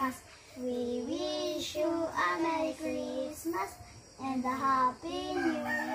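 A child singing a Christmas carol in held, wavering notes, with brief pauses between lines.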